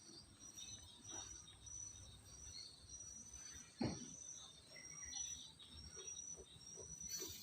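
An insect chirping faintly: short high chirps repeating evenly about every two-thirds of a second. There is a single knock about four seconds in.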